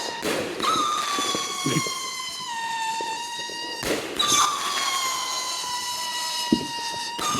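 Screeching fireworks: a steady high whistle with overtones, its pitch sliding slightly down, cut off and started again with a burst of noise about every three and a half seconds. A few small pops sound between the whistles.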